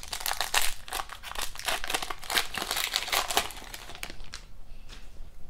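Foil wrapper of a 2022-23 SP Authentic hockey card pack being torn open and crinkled by hand: a dense crackling for about four seconds, then a few fainter ticks.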